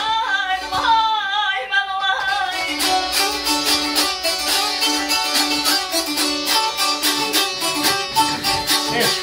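Azerbaijani ashiq music: a woman sings an ornamented, wavering phrase to the saz for about the first two seconds. The saz then carries on alone in a fast, rhythmic strummed passage over a steady drone.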